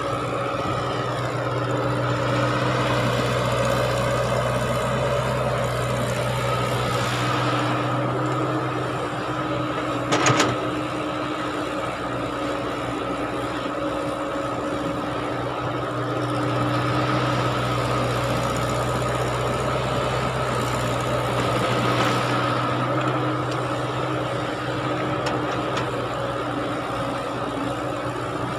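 Caterpillar E120B hydraulic excavator's diesel engine running steadily under digging load, its loudness swelling and easing a few times as the bucket works. A single sharp knock comes about ten seconds in.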